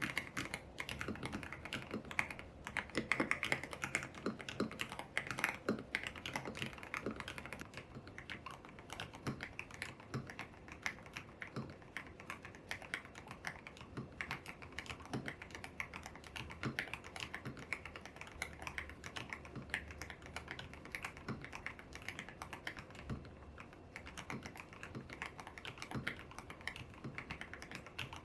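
Typing on a YUNZII X75 PRO mechanical keyboard with lubed Kaith Jellyfish switches, milky keycaps and a tape mod: a continuous run of keystroke clacks, busiest and loudest in the first several seconds, then a steadier pace.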